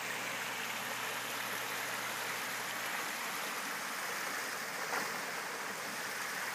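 A shallow stream rushing over a rocky riffle, a steady hiss of running water, with one brief click about five seconds in.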